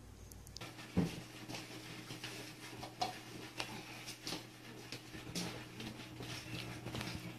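Cats crunching dry kibble from plates: irregular crisp clicks and crunches, with a sharper knock about a second in.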